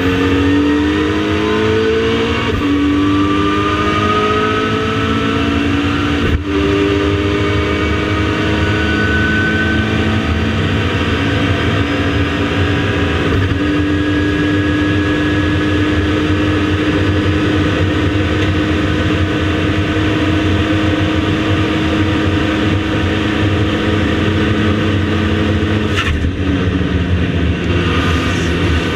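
KTM X-Bow GT4 race car engine, heard from inside the cockpit, accelerating hard with its pitch rising through the gears and a sharp upshift about six seconds in. It then holds a steady high pitch at full throttle for a long stretch before the driver lifts off and the pitch drops near the end, as for braking into a corner.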